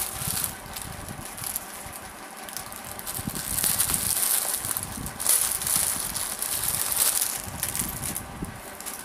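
Rustling and crinkling of a kurti and its wrapping being handled, in uneven bursts with small crackles, loudest from about three to eight seconds in.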